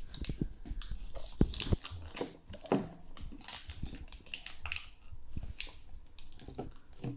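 Plastic toy packaging being handled and opened: irregular crinkling and crackling with sharp clicks.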